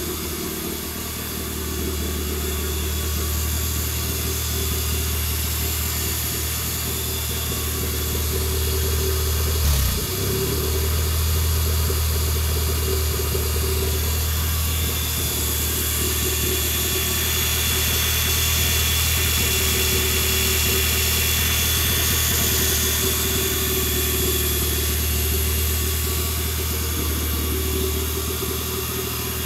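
Mazda B3 four-cylinder engine idling steadily on an engine dyno stand, running unloaded on its first start with the hydraulic dyno disconnected. A short thump about ten seconds in.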